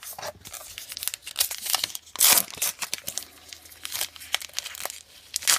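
Foil wrapper of a baseball card pack crinkling and being torn open, a run of sharp crackles with a louder rip about two seconds in and another near the end.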